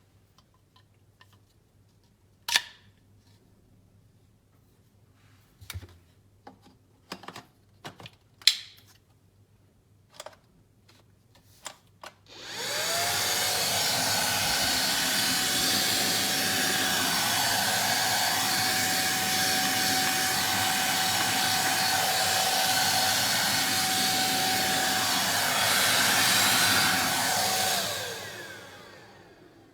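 Several sharp clicks and knocks, then about twelve seconds in an ORFELD cordless handheld vacuum cleaner switches on with a rising whine and runs steadily with a high whine over its rushing air. Near the end it winds down and stops.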